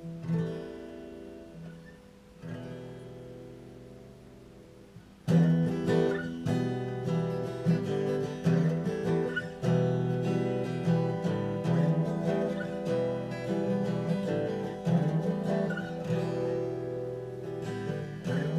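Acoustic guitar: two soft chords are played and left to ring, then about five seconds in a louder, steady strummed pattern begins and carries on.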